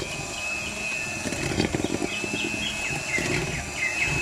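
Small bird chirping: a run of short, quick downward chirps starting about two seconds in, over a steady high tone and low rumble.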